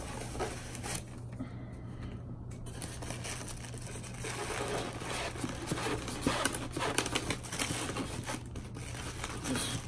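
Clear plastic bag crinkling and rustling, with scraping against a foam packing insert, as a boxed figure is worked loose by hand. The handling grows busier about halfway through.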